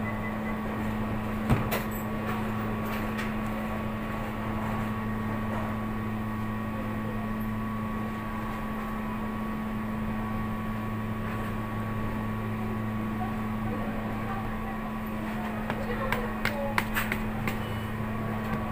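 Steady hum of kitchen machinery: a low tone with a faint higher whine over it. A sharp knock comes about a second and a half in, and a cluster of clicks and knocks near the end.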